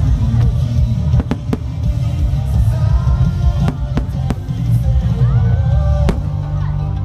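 Aerial fireworks shells bursting, several sharp bangs in irregular clusters over a deep rumble, with music playing throughout.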